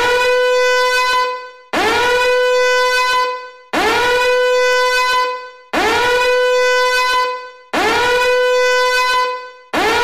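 Fire alarm horn sounding repeated blasts, one about every two seconds. Each blast is a steady horn-like tone that slides up briefly at its start and fades away after about a second, marking that the countdown has reached zero.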